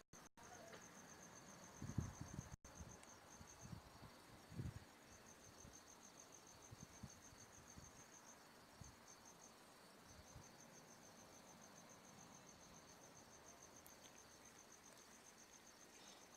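Faint, high-pitched trill of rapid even pulses, like a chirping insect, breaking off briefly about eight to ten seconds in. Two soft low thumps come about two and four and a half seconds in.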